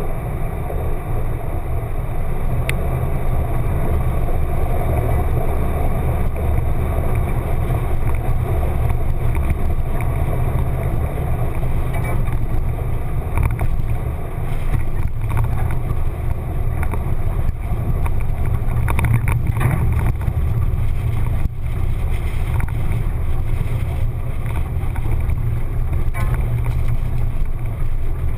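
1995 Jeep Wrangler YJ driving along a rough dirt trail: a steady low engine and drivetrain rumble, muffled by a GoPro's waterproof housing. A few knocks and rattles come through past the middle.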